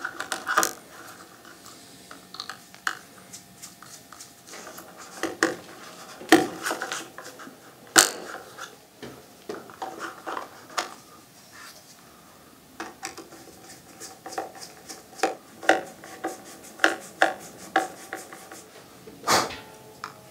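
Scattered sharp clicks and taps of a plastic surface-mounted light switch being assembled: a screwdriver fastening the switch insert into its box and the cover plate pressed into place, with a loud snap near the end.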